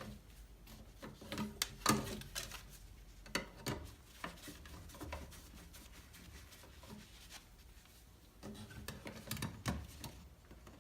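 Hand work on the smoke detector's mounting plate and wiring: irregular small clicks, knocks and rubbing, busiest about two seconds in and again near the end.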